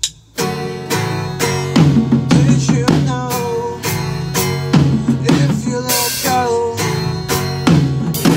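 A guitar and a drum kit start a rock song together about half a second in, with regular drum hits under the strummed chords and a bending melody line above them.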